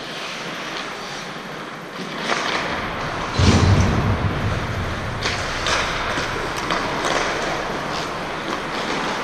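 Ice hockey play heard from the net: skate blades scraping the ice and short sharp scrapes or stick clacks, with a heavy low thump about three and a half seconds in.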